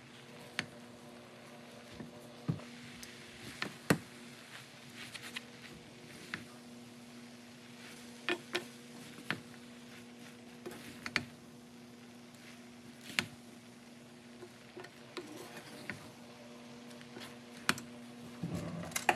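Wooden spatula stirring and tossing noodles in a metal pan: scattered knocks and scrapes of wood against the pan, over a steady low hum.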